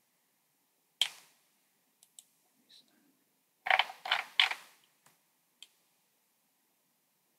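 Computer mouse clicking: a single click about a second in, a few light ticks, then a quick run of about four louder clicks around the middle, and a couple of faint ticks after.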